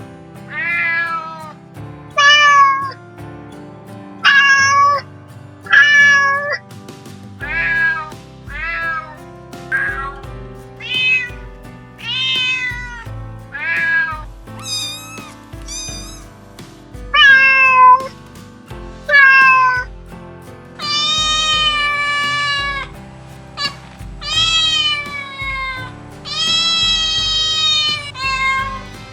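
Cat meowing again and again: short calls that fall in pitch, about one a second, then longer drawn-out meows in the last third. Background music with a low beat runs underneath.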